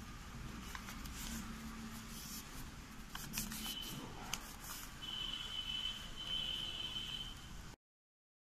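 Origami paper rustling and crinkling as a folded paper boat is pulled open by hand, with a few sharp crackles around the middle. A thin high tone sounds faintly through the second half, and the sound cuts off to silence near the end.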